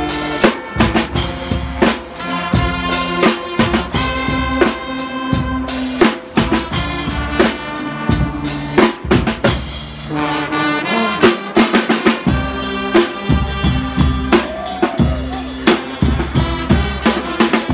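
Guggenmusik carnival band playing: a section of brass instruments over a drum kit with snare and bass drum keeping a steady beat.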